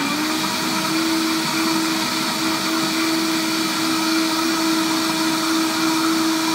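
Countertop blender motor running at high speed, blending corn purée thinned with chicken stock into soup. Its whine climbs to full speed in the first half second, then holds steady.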